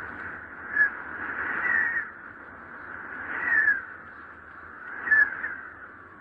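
Wind howling in gusts: a steady whistling rush that swells about four times, each surge carrying a brief falling whistle.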